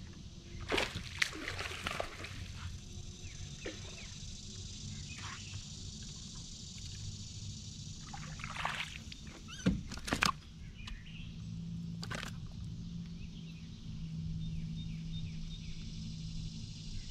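A hooked bass splashing at the water's surface as it is reeled in toward the boat: several short splashes, the loudest about ten seconds in, over a steady low hum.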